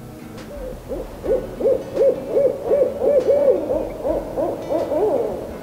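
An owl hooting: a quick run of short hoots, each rising and then falling in pitch, about three a second.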